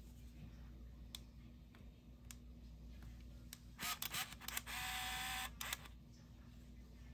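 Olympus mju-II compact film camera being operated: a few light clicks, then two short mechanical bursts and a steady motor whir of just under a second, followed by another click or two.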